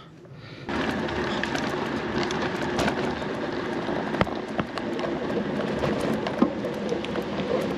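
Bicycle riding noise: tyres rolling over a rough surface, with scattered clicks and rattles from the loaded touring bike.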